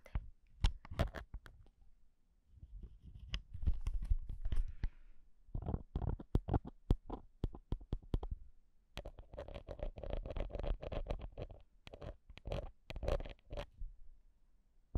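Scratching and tapping right on a handheld digital recorder's bare microphone: crackly clicks and scratchy noise in bursts over a deep handling rumble, with short pauses between bursts.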